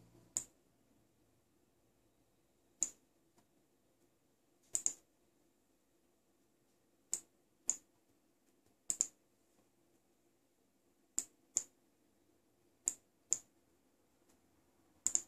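Computer mouse button clicking about a dozen times at irregular intervals, several clicks in pairs about half a second apart, over a faint steady hum.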